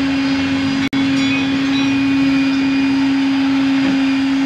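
Steady machine hum of a running motor: one constant low pitch over a noisy drone, which cuts out for an instant about a second in.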